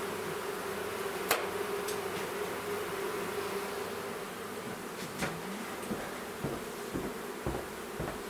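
Honeybees buzzing around an opened hive, a steady hum that weakens in the second half, with a few sharp knocks.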